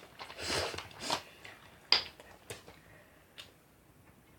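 Eating noises as someone takes a mouthful of fried chicken topped with ramen noodles: two short, noisy mouth sounds in the first second or so, then a sharp click and a few fainter clicks.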